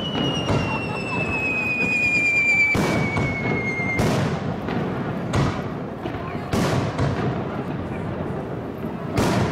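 Aerial firework shells from a multi-shot barrage bursting overhead, a run of sharp bangs every second or so. A long whistle falls slowly in pitch and cuts off with a bang about four seconds in.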